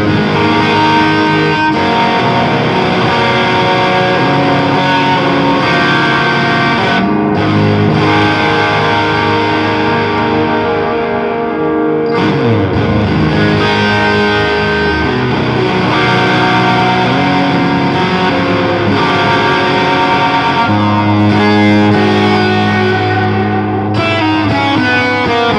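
Electric guitar played through a modded Boss DS-1 distortion pedal: loud, continuous distorted chords and sustained notes, with a sliding drop in pitch about twelve seconds in.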